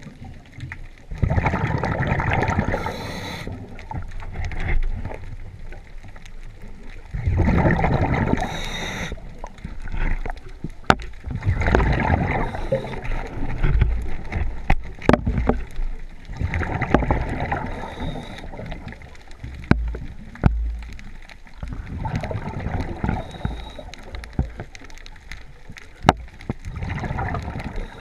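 Scuba diver breathing through a regulator underwater: a bubbling rush of exhaled air about every five seconds, six times, with a few sharp clicks in between.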